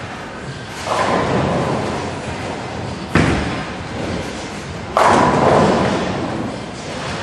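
Ten-pin bowling: a bowling ball thuds onto the wooden lane on release about three seconds in, and about two seconds later pins crash and clatter, ringing on. Another clatter of pins starts about a second in.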